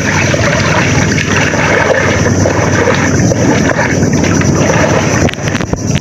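Loud, steady rush and slosh of water around people wading chest-deep, with wind buffeting the microphone.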